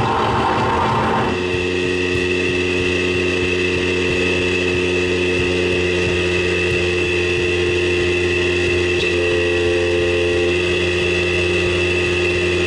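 Live electronic drone music: several sustained synthesizer tones held over a low, pulsing drone, steady throughout, with a hissy layer dropping out just over a second in.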